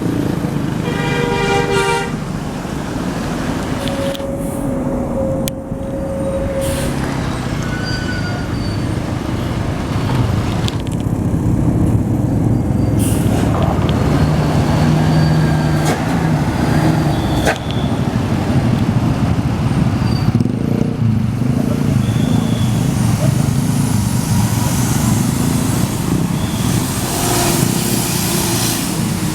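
Tour bus engines and road traffic running throughout. About a second in there is a short burst of a multi-tone 'telolet' bus horn, and a few seconds later a single held horn tone.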